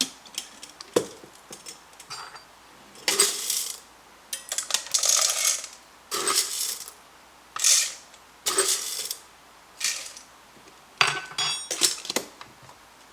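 Whole coffee beans poured into the hopper of a Mazzer Mini grinder in about seven short pours, with quiet pauses between.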